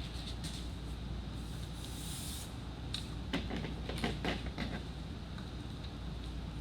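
Paper rustling and sliding as a sheet is handled and lined up against a board, with a short run of light scrapes and knocks a little past the middle, over a steady low hum.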